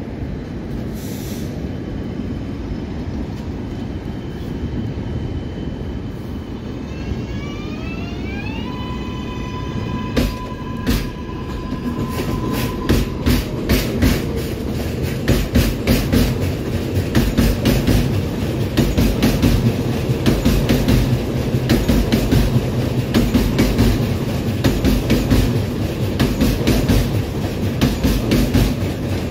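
R188 subway train on an elevated track passing close by. A steady rumble comes first, then a whine that rises in pitch and holds a steady high tone for a few seconds. From about halfway, the train runs by loudly with a rapid clatter of wheels over the rail joints.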